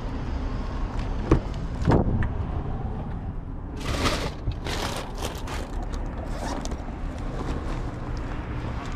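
A car door clicking and thumping open, then plastic shopping bags rustling as they are lifted from the seat, over a steady low rumble of wind and traffic.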